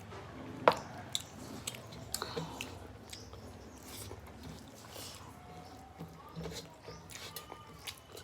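Close-up chewing and mouth sounds of someone eating a meal of rice and fish by hand, with scattered small clicks. One sharp click comes about a second in.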